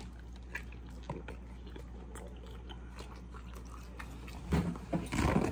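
A man biting into and chewing a soft taco close to the microphone, with faint, scattered mouth sounds. Near the end come a couple of louder handling noises.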